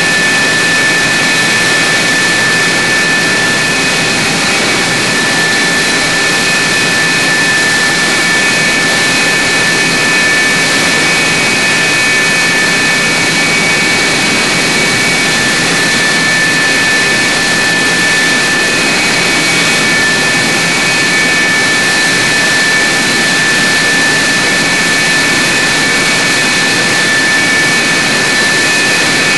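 F-104 Starfighter's J79 turbojet running steadily, a loud rushing noise with a high, unchanging whine, echoing inside the hardened aircraft shelter.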